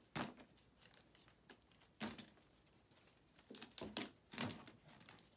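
Artificial plastic berry sprays handled and pulled apart by hand, their stems coming off: faint, irregular plastic clicks and crinkles, busiest near the end.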